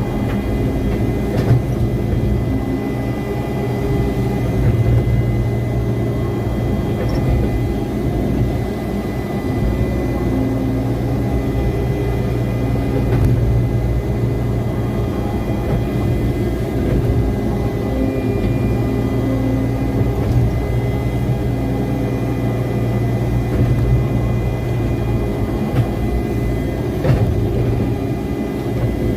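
Hitachi excavator's diesel engine running steadily under load, with a steady high whine over the engine drone and a few light knocks.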